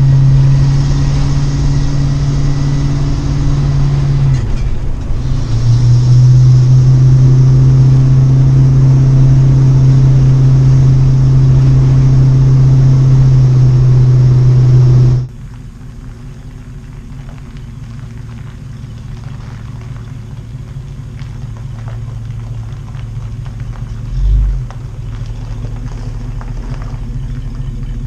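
Class A motorhome engine running under way with a loud, steady low drone; its pitch drops about four seconds in. About halfway through, the sound drops off suddenly to a much quieter low rumble.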